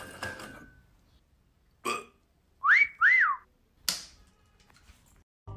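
Two quick whistled glides, each sweeping up and back down like a cartoon slide whistle, come a little under a second after a short burp-like sound. A sharp click follows about a second later.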